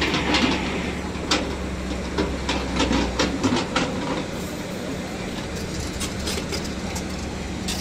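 Tata Hitachi excavator's diesel engine running steadily while its bucket works a load of ballast stones, with a rapid string of clanks and stone rattles over the first four seconds that then thins out.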